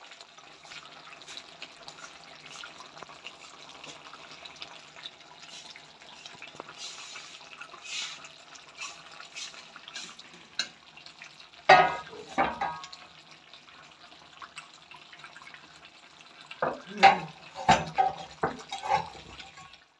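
Chicken cooking in a metal karahi on a gas burner, a steady crackling hiss, while a metal spoon stirs and knocks against the pan: a few sharp clanks about twelve seconds in and a cluster of them near the end.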